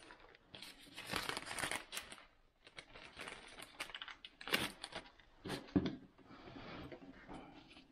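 Clear plastic bag crinkling and rustling in gloved hands, with a few sharp small clicks.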